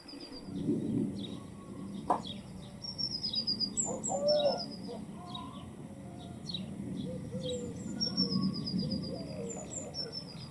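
White storks clattering their bills, a rapid wooden rattle, while a small songbird repeats a short, high, falling trill several times.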